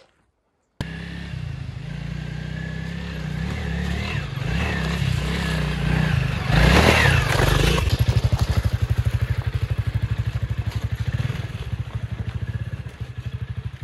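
Adventure motorcycle engine running at low speed on a rocky trail. About seven seconds in there is a brief louder rev, then an even pulsing beat.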